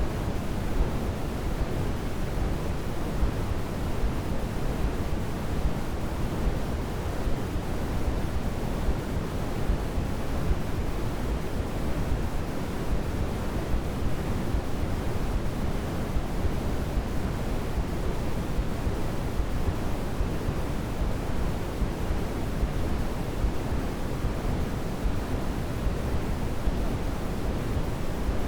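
Steady sleep-aid noise for babies: an even, unchanging hiss with no swells or breaks, heavier in the lows and thinning toward the highs, more like a deep rush than a bright hiss.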